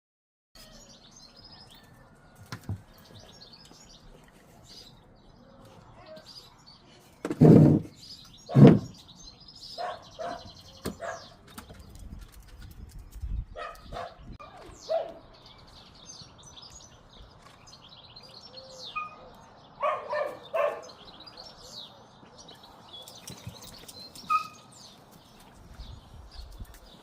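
Puppies yelping and squeaking, with short high chirps throughout and two louder sounds about seven and nine seconds in.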